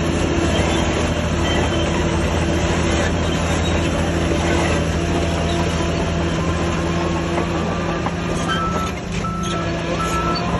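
Diesel engine of heavy earthmoving machinery running steadily under load. About eight and a half seconds in, a reversing alarm starts beeping about once a second.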